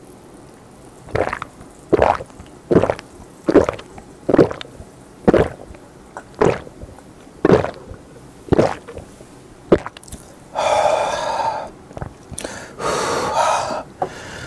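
A person gulping down a glass of fizzy melon soda in about ten swallows, roughly one a second, followed by two longer breaths out near the end.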